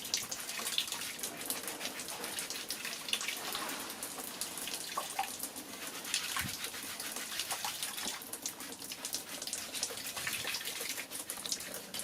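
Water running and splashing, a steady hiss dotted with many small irregular splashes.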